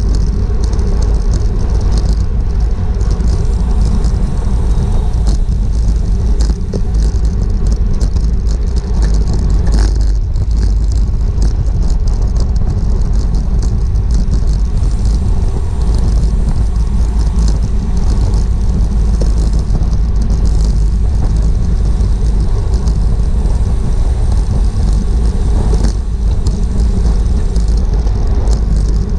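Wind rushing over a GoPro on a racing bicycle at speed: a steady, loud low rumble with tyre and road hiss and a few light clicks and rattles.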